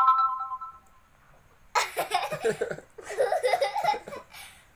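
A young girl giggling in two bursts, about two and three seconds in. Before that, a bell-like chime rings and fades out within the first second.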